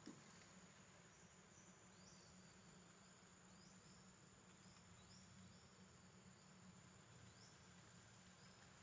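Near silence with faint outdoor insect sound: a steady high-pitched drone, short rising chirps recurring every second or so, and a low hum beneath.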